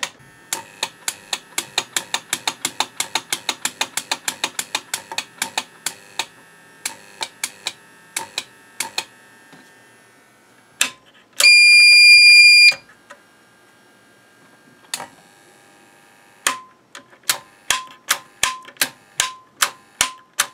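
Old APC Back-UPS 650 clicking rapidly, about five clicks a second, as it is switched over again and again under load. About eleven seconds in, its beeper sounds once: a loud, high beep just over a second long. After that the clicking resumes at a slower, uneven pace.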